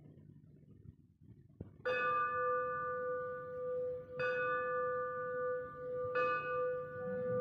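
A metal temple bell struck three times, about two seconds apart, starting about two seconds in. Each stroke rings on with a steady tone and bright overtones that carry into the next.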